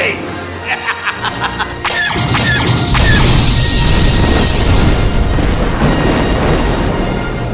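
Movie-style explosion sound effect: a run of sharp clicks and a few short beeps, then about three seconds in a loud blast that rolls on as a long, deep rumble, with soundtrack music underneath.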